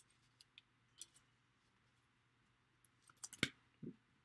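Faint, sparse clicks and taps of trading cards and a card pack being handled, with a quick cluster of louder clicks about three seconds in.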